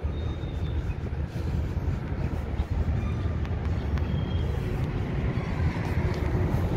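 City street ambience: a steady low rumble of traffic, with a few faint short high tones and light clicks over it.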